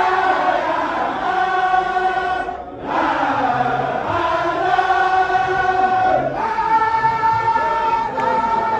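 Baye Fall zikr: a group of men chanting in unison in long held phrases. There is a short break for breath about two and a half seconds in, and the line moves up to a higher held note about six seconds in.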